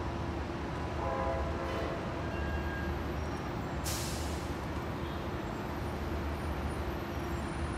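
Diesel locomotives of an approaching work train running, a steady low engine drone, with a short hiss about four seconds in.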